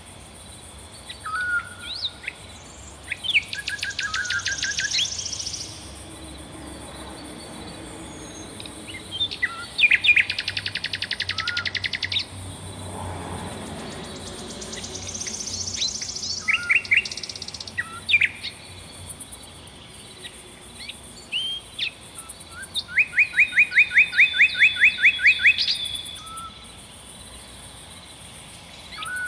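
Songbirds singing: three loud trilled songs of rapid, evenly repeated notes, each lasting two to three seconds, with short rising call notes between them, over a faint steady high hiss.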